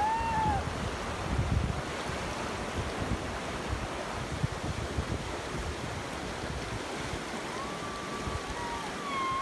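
Fast white-water river rushing steadily, with wind buffeting the microphone. A few long, high-pitched calls cut through at the very start and again near the end.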